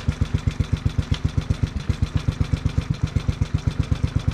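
Locke Triplex reel mower's gasoline engine idling at low throttle, an even beat of about eight or nine firing pulses a second.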